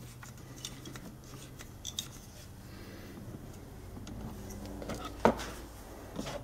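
Small metal clicks and scrapes of a riser mount being slid and seated onto an AR-15's Picatinny rail by hand, with one sharper click a little over five seconds in.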